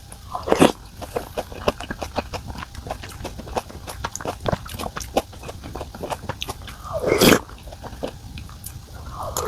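A person eating close to the microphone: chewing with many small wet clicks, and two louder, drawn-out mouth sounds, one right at the start and one about seven seconds in.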